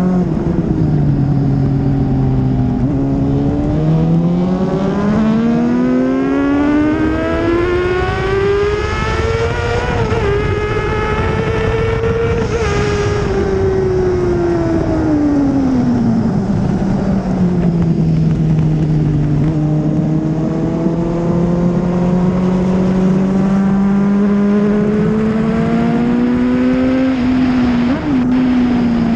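2004 Honda CBR600RR's inline-four engine heard from on board at speed: it revs up in one long climb to a high pitch, holds there, drops back steeply and runs low, then climbs more gently and falls again near the end, as the bike accelerates and slows for corners. Steady wind rush runs under the engine.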